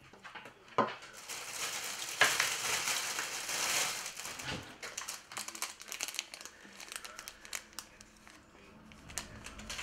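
Thin plastic bags being handled and crinkled, loudest in the first few seconds, then a run of small clicks and light rustles as a small clear bag of plastic servo parts is picked up and turned over.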